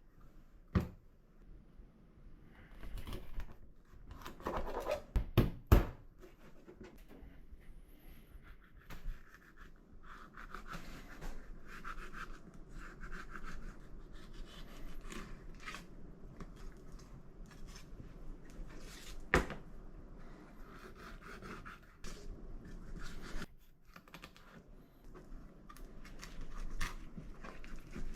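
Scattered knocks, clicks and scraping from camp cooking gear being handled, with sharp knocks about five to six seconds in and again near nineteen seconds.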